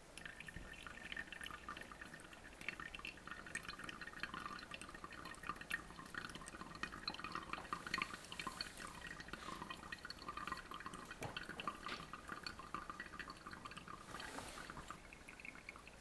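Hot water poured in a thin stream from a stainless gooseneck kettle onto coffee grounds in a Hario V60 paper-filter dripper, with fine dripping and trickling as the brew runs through into a glass beaker. The pour starts just after the opening.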